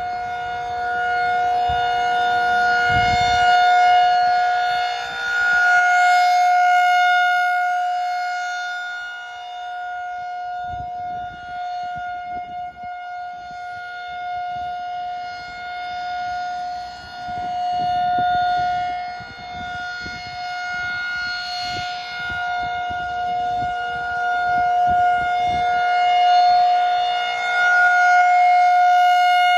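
Outdoor civil-defense warning siren sounding a steady, unchanging tone for a tornado drill, growing louder and softer every several seconds.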